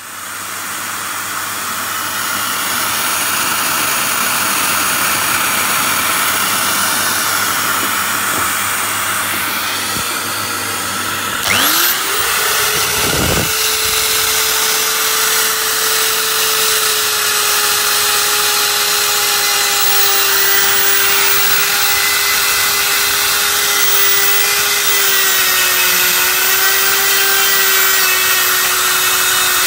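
Rotary grinder with a mounted grinding stone running against the cast-iron inlet port of a classic Mini A-series cylinder head, a continuous grinding rasp. About twelve seconds in the tool spins up quickly to a steady whine that wavers slightly as the stone is worked in the port.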